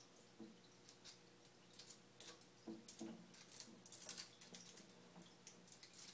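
A pet turtle climbing out of the water onto a basking platform: faint, irregular clicks and taps of claws and shell scrabbling on the platform and glass, with a few duller knocks and small water drips, busiest in the middle. A faint steady hum runs underneath.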